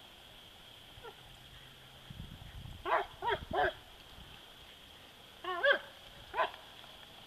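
German Shepherd puppy giving short, high whining yips: three in quick succession about three seconds in, then two more near six seconds.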